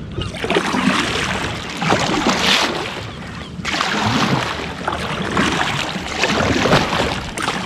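Double-bladed kayak paddle stroking through calm water on alternate sides, each stroke a swishing splash, coming about every one and a half to two seconds.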